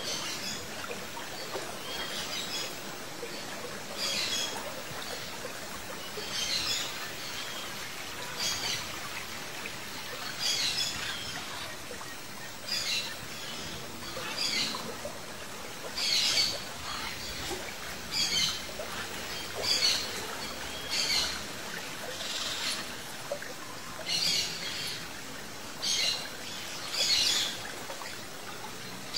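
Blue-and-yellow macaws giving short high calls, one every second or two, louder in the second half.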